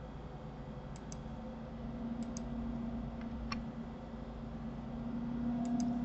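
Light computer mouse clicks, mostly in quick pairs, four times over, above a steady low hum that grows a little louder in the second half.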